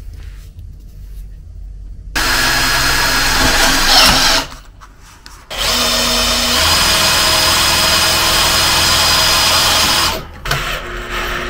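Makita cordless drill driver driving self-tapping screws through plastic solar-panel mounting brackets into the panel frame. It runs twice: a short burst of about two seconds starting about two seconds in, then a longer run of about four and a half seconds from about halfway.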